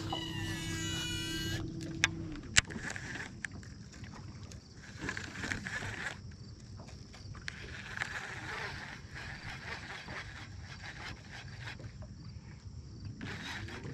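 Boat motor running with a steady low hum that cuts off a couple of seconds in and starts again near the end. In between there is quieter outdoor background with two sharp clicks shortly after the motor stops.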